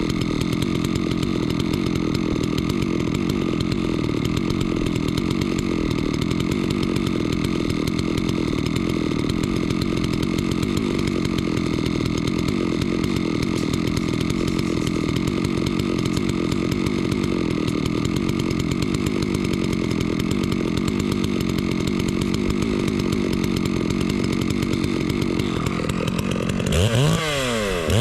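Small petrol engine running steadily at an even pitch, then revved up and down several times near the end.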